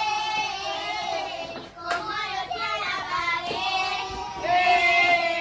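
Children singing a song together in high voices, with long held notes, the longest near the end.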